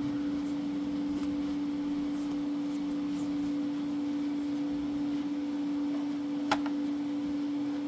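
A steady, single-pitched hum in the room, with faint clicks of trading cards being handled and one sharp click about six and a half seconds in.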